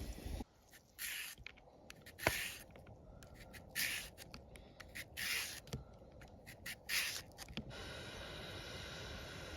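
A knife slicing vegetables, about five short rasping strokes with small clicks and taps between them. A steady hiss takes over near the end.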